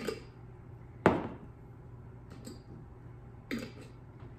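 Spice jar handled over a pot of sauce: a couple of clicks and one sharp knock about a second in, with a steady low hum underneath.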